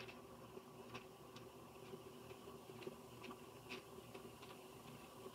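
Near silence: faint room hum with small, irregular clicks from a deck of tarot cards being handled.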